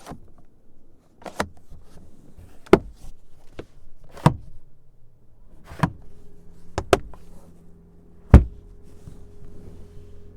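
A series of sharp clicks and knocks from a car's doors and cabin controls, about nine in all and unevenly spaced, the loudest a heavy low thump a little past eight seconds in. A steady low hum comes in about six seconds in.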